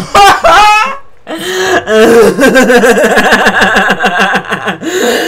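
Loud, hard human laughter: a high gliding squeal in the first second, then after a short break a long run of rapid ha-ha-ha pulses, about five a second.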